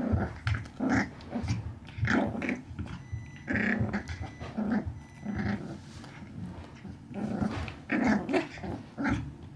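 Small Pomapoo dog growling in short, irregular bursts, over and over.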